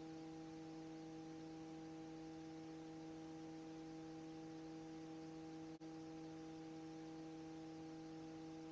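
Faint, steady electrical hum with a light hiss on the headset intercom audio between radio calls, made of a few steady tones. It drops out for a moment about six seconds in.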